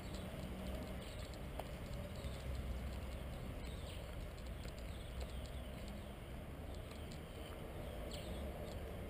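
Outdoor morning ambience: small birds chirping now and then over a steady low rumble.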